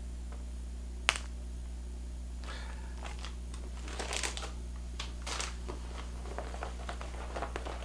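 Plastic packaging crinkling and rustling in short bursts as fishing lures are handled. There is a single sharp click about a second in, over a steady low hum.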